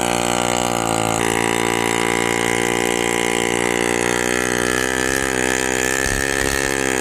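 The boat's 12 hp 250cc two-stroke engine running steadily. Its pitch dips slightly about a second in and wavers a little in the second half.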